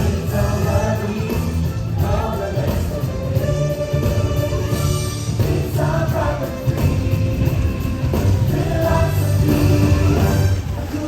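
Music with singing voices, choir-like, over a full backing.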